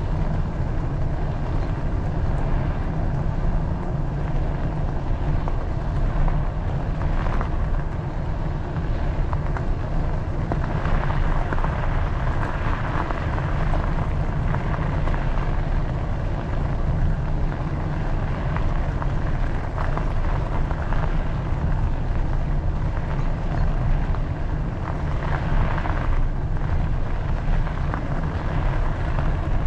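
Wind rushing over the microphone of a bicycle-mounted camera while riding: a steady, loud low rumble with a hiss above it, swelling briefly now and then.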